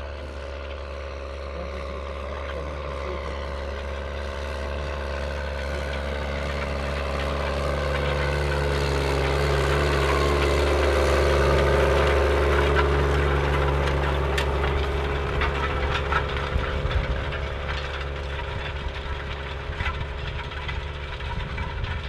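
Diesel farm tractor pulling a tillage cultivator through the soil, its engine running steadily under load. It grows louder to a peak about halfway through as it passes close, then fades, with irregular rattling and clatter in the second half.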